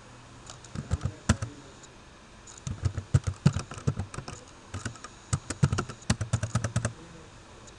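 Computer keyboard typing in three short runs of keystrokes with brief pauses between them, as commands are entered.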